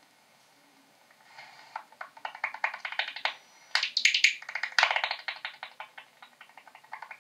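Soprano pipistrelle echolocation calls, played back from a recording by the Echo Meter Touch 2 bat-detector app through an iPad's speaker and made audible as rapid dry clicks. The clicks come in irregular bursts, starting about a second in and loudest around the middle.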